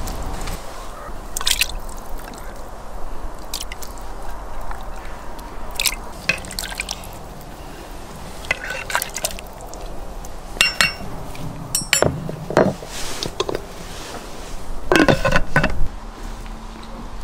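Pieces of food dropped by hand into water in a metal pot, giving small splashes and drips, and a metal utensil knocking and clinking against the pot. One clink about two-thirds through rings out clearly, and there is a louder clatter near the end.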